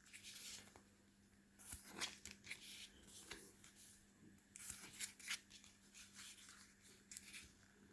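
Soft paper rustling as the pages of an oracle deck's guidebook are leafed through, in several short spells.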